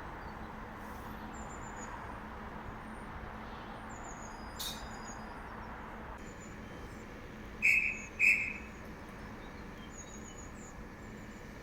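Small birds chirping faintly over a steady low hum. Two short, loud high-pitched beeps come about half a second apart past the middle.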